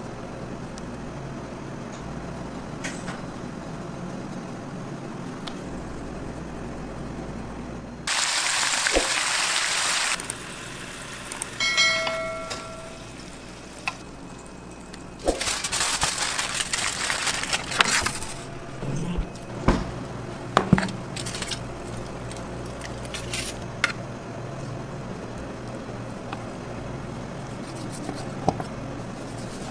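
Kitchen food-prep sounds over a steady background hum: two stretches of loud hissing, about eight seconds in and again around fifteen seconds, a short ringing tone near twelve seconds, and scattered clicks and knocks of metal utensils.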